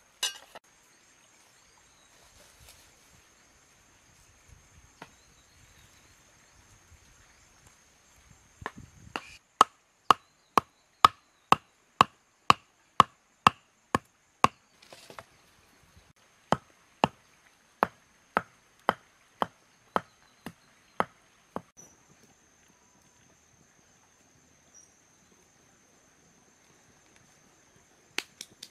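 Wooden mallet striking a wooden stake, driving it into the dirt. The sharp knocks come evenly at about two a second for roughly ten seconds, with a brief pause partway through.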